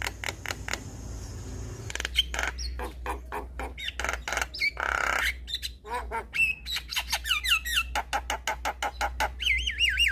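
Javan myna song: a fast jumble of clicks, harsh squawks and warbling whistles, with a longer rasping squawk about halfway through and quick wavering whistles near the end.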